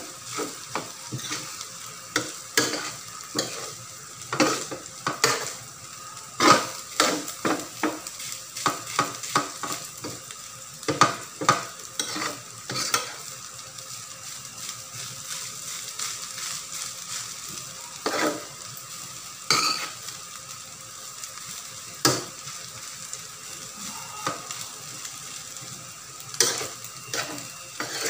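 A metal utensil scrapes and clinks against a stainless steel wok as rice is stir-fried, over a steady sizzle. The strokes are irregular and come thick and fast for the first half, then more sparsely.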